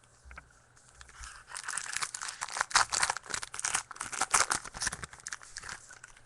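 A trading-card pack's foil wrapper being torn open and crinkled, a dense run of crackling and tearing that starts about a second in and stops shortly before the end.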